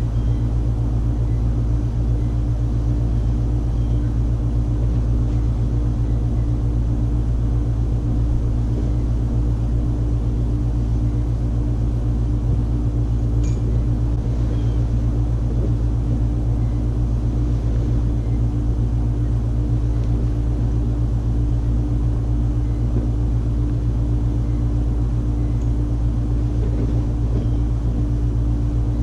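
A steady, unchanging low mechanical hum with a few fixed tones, from a running motor or machine.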